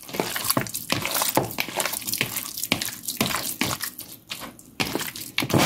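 A hand squishing and kneading raw boneless chicken pieces with garlic paste, black pepper and salt in a plastic bowl to marinate them. Wet squelches repeat about two to three times a second.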